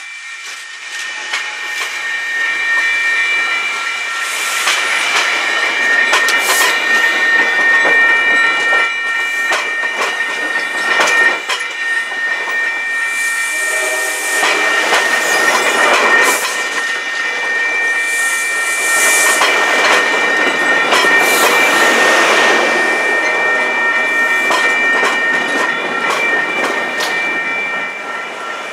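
MBTA commuter train's passenger coaches rolling past close by: wheels clicking over the rail joints, with a steady high-pitched squeal running under it.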